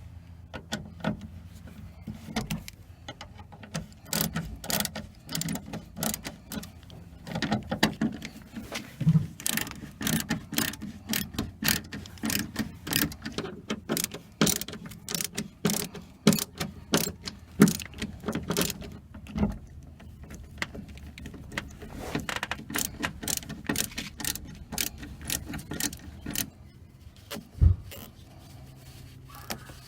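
Rapid, irregular mechanical clicking of hand tools at work on the speaker and spacer mounting, in bursts with short pauses, ending in one dull knock near the end.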